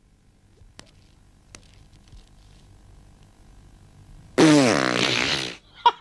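Comic sound effect: a loud, buzzing sound about a second long that falls steadily in pitch, near the end, after a few quiet seconds with two faint clicks.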